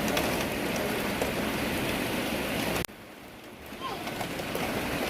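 Steady heavy rain hissing. Nearly three seconds in it drops off suddenly to much quieter rain for about a second, then builds back up.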